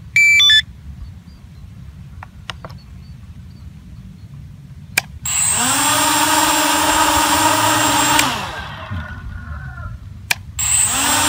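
A short electronic beep from the Devo 7E transmitter as binding completes, then the JJRC X1 quadcopter's motors and propellers spin up about five seconds in, run steadily with a high whine for about three seconds and wind down. After a click they spin up again near the end.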